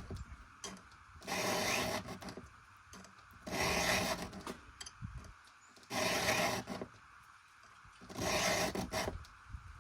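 A hand file rasping across a chainsaw ripping chain's cutter tooth in four slow, even strokes, about one every two and a half seconds, as the tooth is sharpened.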